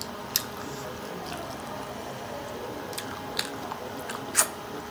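Two people eating momos and chowmein close to the microphone: chewing, with four short sharp clicks, the loudest about four and a half seconds in.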